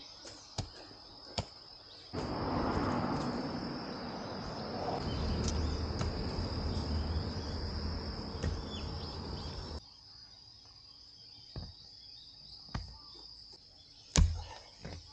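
A hoe chopping into hard garden soil: a few sharp strikes, the loudest near the end, over a steady high insect trill. A rushing noise covers several seconds in the middle.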